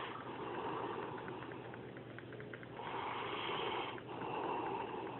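Snoring in slow, noisy breaths: one at the start, then two more close together from about three seconds in.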